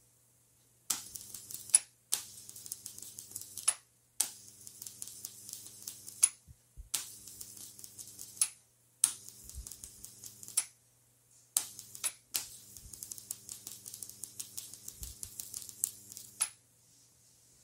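High-voltage arc from a single-MOSFET flyback driver, drawn onto an aluminium heatsink, crackling over a low steady hum. It strikes and dies seven times, each run lasting from under a second to about four seconds, with a sharp crack at each start and stop.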